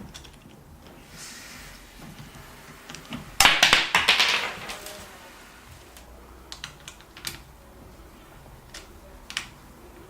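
Hands handling parts and packaging: a burst of rattling and rustling about three and a half seconds in, then a few scattered sharp clicks.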